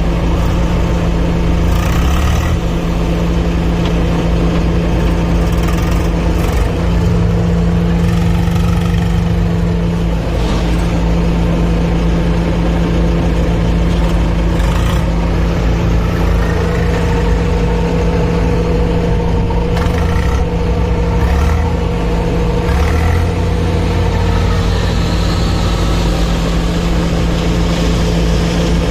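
Diesel engine of a heavy earthmoving machine running steadily with a constant low drone, with a few short knocks now and then.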